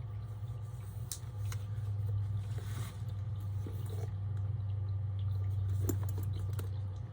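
Steady low background hum, with a few faint clicks and rustles as a purse and its hardware are handled.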